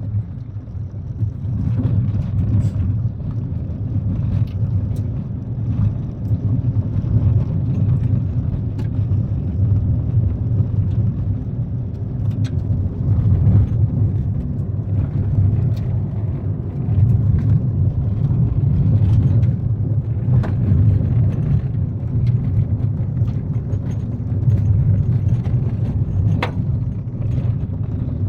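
Kia Picanto driving on a gravel road: a steady low rumble of tyres and car running over gravel, with scattered sharp ticks of loose stones striking the car.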